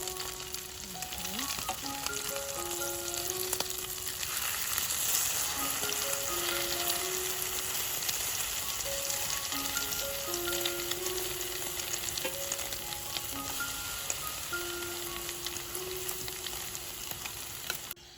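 Food sizzling and crackling as it fries in a hot pan, swelling louder a few seconds in, with a slow melodic background music line over it. Both cut off abruptly near the end.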